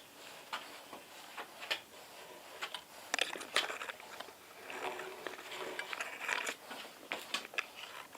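Scattered clicks and light knocks, with a denser stretch of scraping in the middle, from tools and metal parts being handled during the repair.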